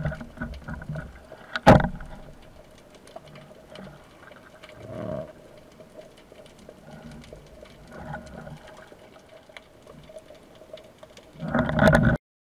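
Band-powered speargun firing underwater: one sharp crack about two seconds in, heard through the gun-mounted camera's housing. Then quiet water noise with a faint steady hum, and a burst of loud rushing noise near the end before the sound cuts off.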